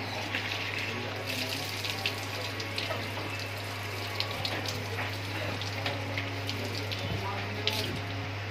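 Water poured from a plastic mug splashing over cut chicken pieces on a steel table as they are rinsed, with a few short knocks, over a steady low electrical hum.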